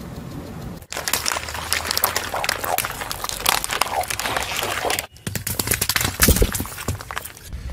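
A car tyre rolling over and crushing objects on asphalt. A low engine hum runs at the very start. From about a second in there is a dense run of crackling and crinkling. After a break at about five seconds comes a series of louder pops and cracks as liquid-filled balloons burst under the tyre.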